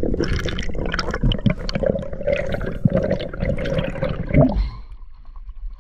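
Underwater water noise on a diving camera: bubbling, gurgling and crackling as the freediver swims up toward the surface, with a louder gush about four and a half seconds in before it quietens.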